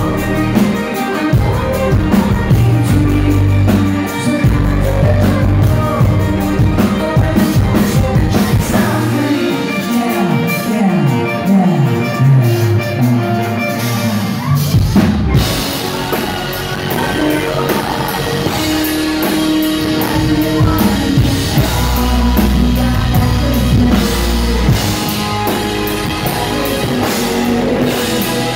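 Live rock band playing: drums, electric guitar, keyboard and sung vocals. About nine seconds in the bass and kick drum drop out for several seconds, and after a brief break at about fifteen seconds the full band comes back in.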